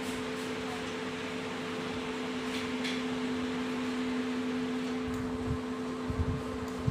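Steady machine hum on two low pitches, from a running fan or similar appliance. A few faint clicks midway, and several soft low knocks near the end as the folded metal tripod stand is handled.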